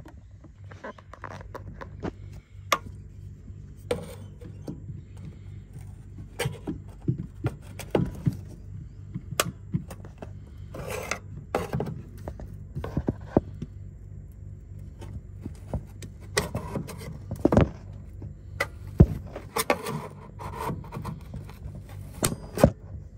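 Scattered clicks, scrapes and knocks as a screwdriver prods and scrapes at the seam of a galvanised steel heat shield inside a caravan fridge, with plastic wiring connectors being handled. A steady low hum runs underneath.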